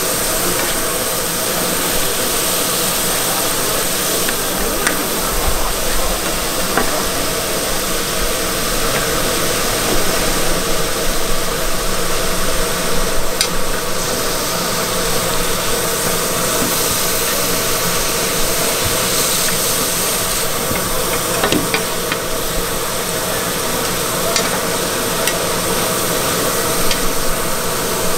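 Food sizzling and being stirred on a hot street-stall griddle, a steady frying hiss with occasional sharp clicks.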